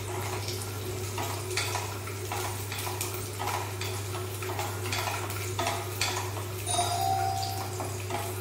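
Wooden spatula stirring garlic cloves frying in hot oil in a non-stick kadai, knocking and scraping against the pan about twice a second, under a steady low hum.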